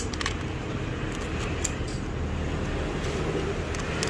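Steady low background rumble with a few light clicks.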